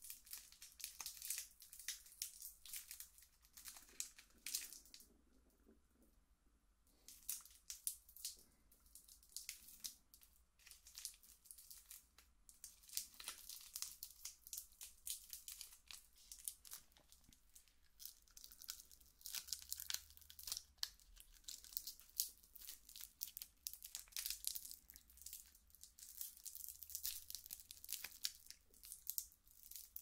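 Plastic candy wrapper being torn open and crinkled by hands: a dense run of sharp crackles, with a quieter pause of a second or two about five seconds in.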